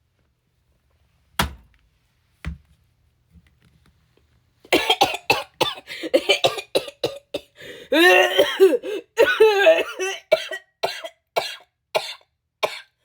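A woman's long coughing fit: rapid, harsh coughs start about five seconds in and run on, some of them strained and voiced. She puts the fit down to her cigarettes. Two soft knocks sound earlier.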